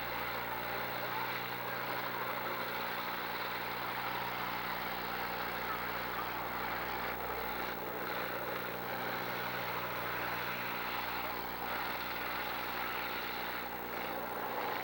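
Demolition derby cars' engines running together as a steady wash of engine noise, with no single crash standing out.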